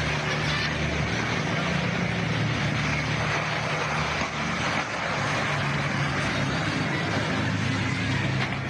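A helicopter's engine and rotor running steadily over city background noise, heard through amateur footage being played back.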